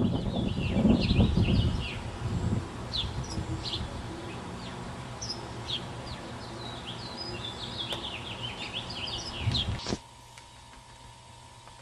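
Songbirds chirping, many short quick calls, over a low rumble in the first couple of seconds. About ten seconds in the sound cuts off suddenly, leaving only a faint steady hum.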